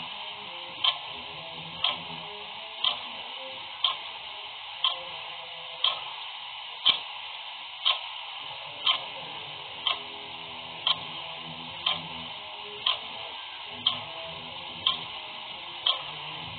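Clock ticking evenly, one tick a second, over a steady faint hiss.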